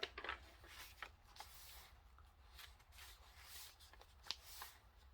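Faint rustling and light tapping of the paper pages of a handmade junk journal being turned and handled, in short irregular bursts.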